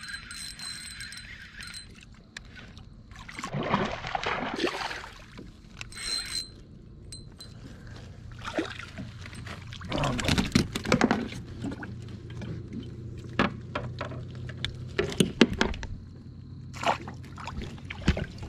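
Water splashing and sloshing beside a plastic kayak as a landed fish is handled at the side and let back into the water, with two longer splashy spells and sharp clicks and knocks on the hull near the end.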